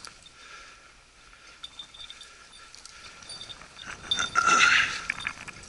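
A hunting dog's collar bell jingling on and off as the dog moves through brush. The ringing grows loudest, mixed with rustling, about four seconds in.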